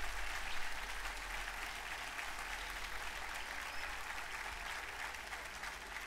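Audience applauding, a steady spread of clapping that slowly dies down.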